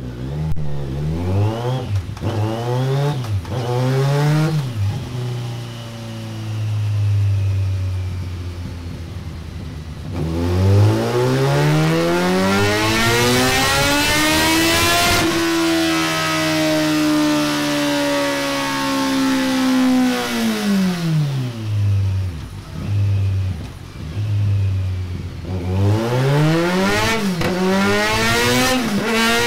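Kawasaki Z900's 948 cc inline-four engine through a Delkevic X-Oval titanium silencer on a full de-cat exhaust system, revved while stationary. It opens with a few quick throttle blips, settles to a steady idle, then climbs in one long rev over about five seconds, eases off slowly and drops back to idle. Near the end come more quick blips.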